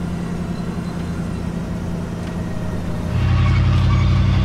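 Vehicle engine running with a steady low hum, getting louder about three seconds in, during an off-road recovery of a pickup stuck in a river.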